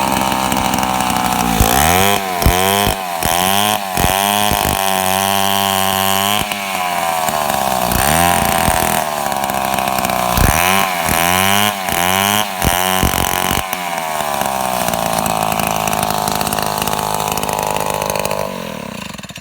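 Two-stroke chainsaw engine running, its pitch dropping and climbing again and again in two spells of quick revs, steady at high speed in between. Near the end it winds down and stops.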